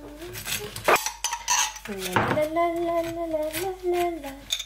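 Table knife scraping across toast and clinking as butter and Marmite are spread on it over a wooden chopping board, with a sharp clink about a second in and another just after two seconds. Under the middle of it, for about two seconds, a steady held tone.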